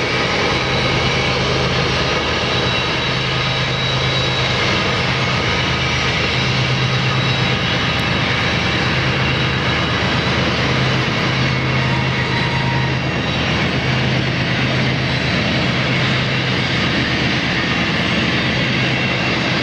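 Canadian Pacific diesel locomotives working hard, hauling a loaded grain train up a mountain grade: a loud, steady, low thrumming engine drone.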